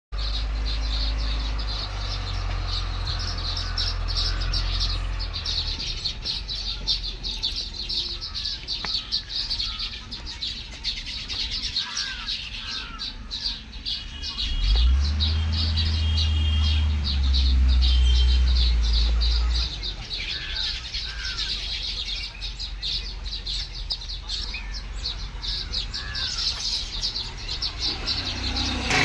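A flock of baya weavers chattering and chirping around their hanging nests in a coconut palm, a dense, rapid twittering with scattered single calls. About halfway through, a low rumble swells for around five seconds and then fades.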